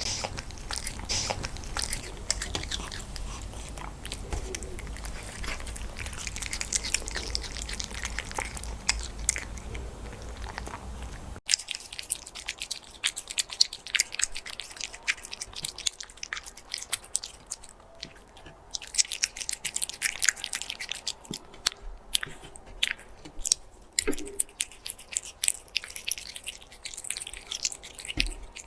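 Silver shaded cat chewing and crunching food, a quick irregular run of sharp crunches. A low hum under the first part drops away about eleven seconds in.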